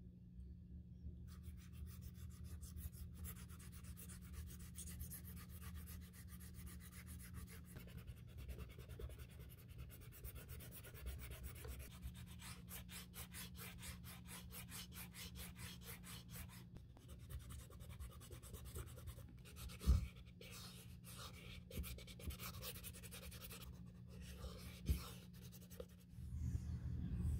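Sandpaper rubbed in quick back-and-forth strokes along the edge of a leather handbag, a dry scratchy rasp. The damaged edge coating is being sanded smooth before fresh edge paint goes on. A steady low hum runs underneath, with a single knock about 20 seconds in.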